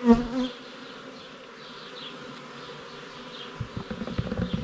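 Honeybees buzzing steadily around an open hive, with single bees zipping past the microphone. There is a brief loud bump just after the start. Near the end comes a run of low knocks and scraping as a hive tool pries a frame loose.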